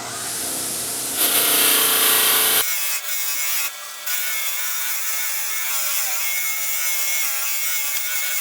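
Grinder fitted with a wire wheel, running and brushing rust and old paint off the metal parts of an antique post drill to strip them to bare metal. A steady whine with harsh scratching, loudest for about a second and a half near the start, then the sound changes abruptly and runs on as a steady whine.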